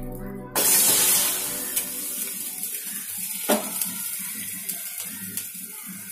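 A wet stainless-steel pot of boiled sago set back on a lit gas burner. It sizzles with a hiss that starts suddenly about half a second in and slowly dies away, with a sharp metal knock against the burner grate about halfway through.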